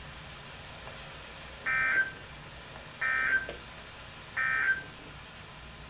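Emergency Alert System SAME end-of-message code: three short, identical buzzy data bursts about a second and a half apart over faint radio hiss, signalling the end of a weather alert message.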